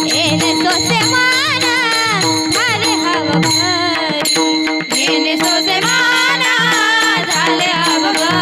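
Varkari kirtan music: a woman singing a wavering devotional melody over steady held accompanying tones, with a regular drum and cymbal rhythm.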